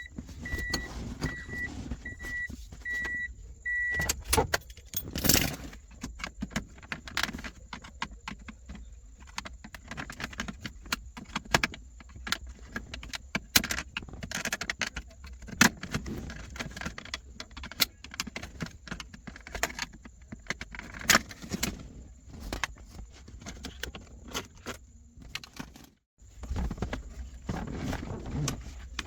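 Clicks, taps and light rattles of plastic console trim, clips and electrical connectors being handled and unplugged around a car's gear shifter. In the first few seconds, a car's warning chime beeps steadily at about two beeps a second.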